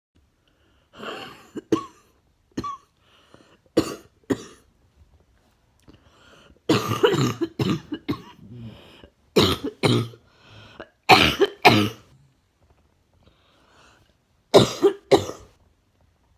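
A woman coughing: a chesty cough coming mostly in pairs of sharp coughs, with a longer coughing fit near the middle.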